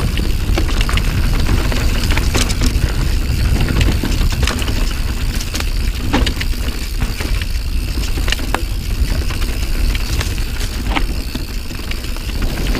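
Riding noise from a Santa Cruz Nomad mountain bike descending a dirt trail: a steady low rumble of wind and tyres on the camera microphone, with frequent sharp clacks and rattles from the bike over rough ground.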